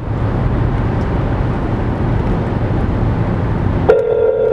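Steady low road noise inside a car cabin. About four seconds in, a phone on speaker starts a steady ringback tone as an outgoing call rings out, in the usual pattern of two seconds on and four off.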